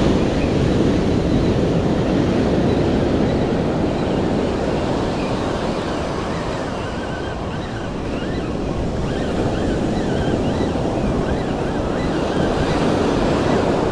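Sea surf breaking and washing up a sandy beach in a steady rush, with wind buffeting the microphone.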